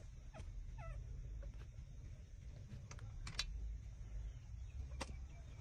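Newborn puppies suckling at their mother's teats: scattered small wet sucking and smacking clicks, with one brief high puppy squeak about a second in, over a low rumble.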